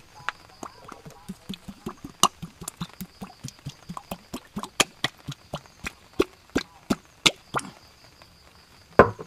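A run of sharp, evenly spaced knocks, about three a second, stopping shortly before the end, then one louder thump.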